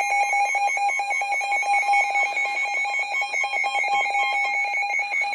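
Electronic emergency alert alarm: a high beeping tone pulsing rapidly and evenly, several beeps a second, the attention signal that comes before a new tornado warning.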